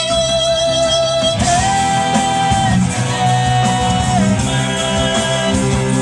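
Loud rock music from the stage PA: a high lead line in long held notes that step in pitch every second or so, over bass and drums, with cymbals joining about a second and a half in.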